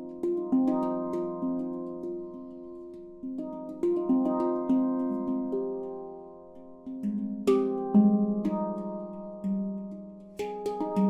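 Ember-steel handpan in F Pygmy tuning played by hand: phrases of struck notes that ring on and overlap, each fading after its stroke, with brief lulls between phrases and a harder stroke about eight seconds in.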